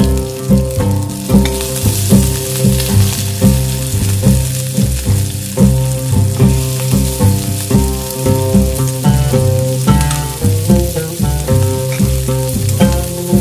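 Hot oil sizzling steadily in an iron kadai as bay leaves, cumin, garlic chives and ginger fry, with a metal ladle stirring and scraping the pan. Background music with a steady beat plays over it and is the louder sound.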